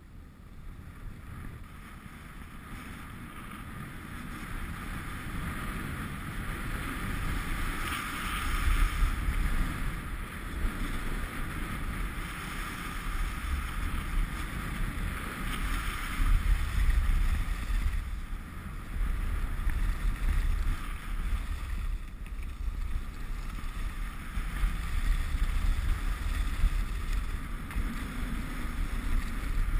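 Wind rushing over an action camera's microphone during a fast downhill ride on snow, with the steady hiss of edges sliding over the snow. It builds over the first several seconds as speed picks up, then rises and falls in gusts.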